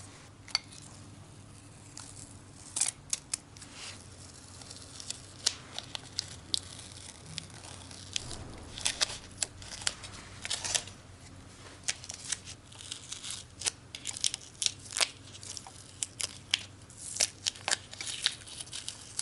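Paper rustling and tearing, with scattered light clicks and taps as a small metal part is handled, over a faint steady hum. This is plausibly paper stuck to a freshly coated Izh-49 piston being picked off.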